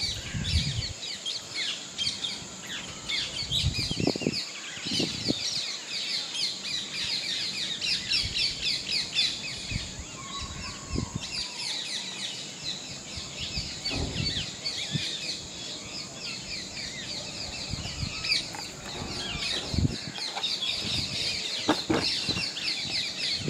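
A flock of birds chirping continuously in a dense chatter of short, high, rapid notes. A few dull low thumps come through, about four seconds in, around fourteen seconds and near the end.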